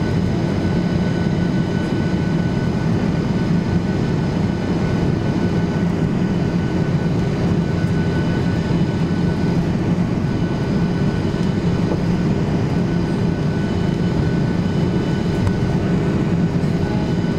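Steady cabin noise inside a Boeing 737-800 in flight: its CFM56 jet engines and the rush of air past the fuselage make an even roar with a low hum and a few faint steady tones above it.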